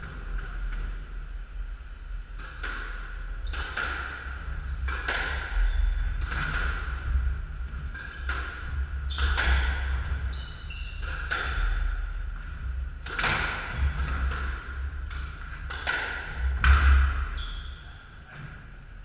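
Squash rally: the rubber ball cracks off racquets and the court walls about once a second, each hit ringing briefly in the court, with short high squeaks of shoes on the wooden floor and thudding footfalls between hits. The loudest hit comes near the end.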